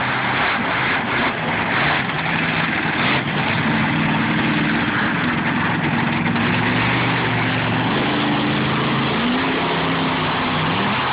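Monster truck engines running hard over a dense, steady rush of noise, their pitch rising and falling with the throttle and climbing again near the end.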